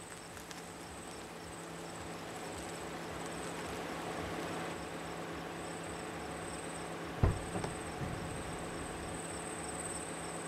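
Crickets chirping in a continuous high, pulsing trill over a low steady hum, with one sharp thump about seven seconds in.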